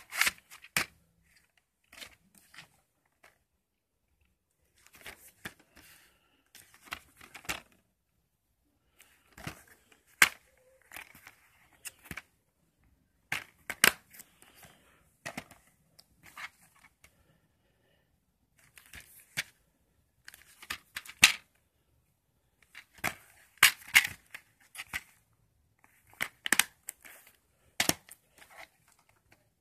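Plastic VHS clamshell and DVD cases being handled: scattered sharp clicks and snaps with short rustles, coming in clusters with quiet gaps between.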